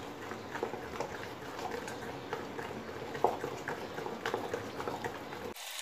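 Thick semolina-and-curd batter being mixed by hand in a steel bowl: a wet, squishing sound with many small irregular ticks and taps. It stops abruptly near the end.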